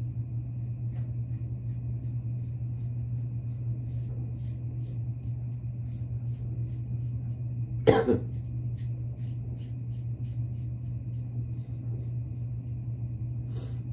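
A double-edge safety razor scraping through lathered stubble in short strokes, heard as faint crackly ticks over a steady low hum. A single cough about eight seconds in is the loudest sound.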